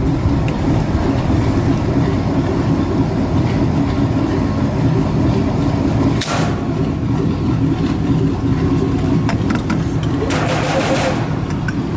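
Vehicle driving at road speed, heard from inside the cab: a steady low rumble of engine and tyres. A brief rush of noise comes about six seconds in, and a longer one about ten seconds in.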